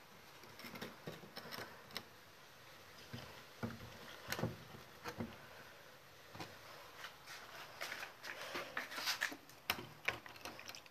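Irregular taps, clicks and rustles of handling as a small plastic plant pot with soil is carried and turned in the hand.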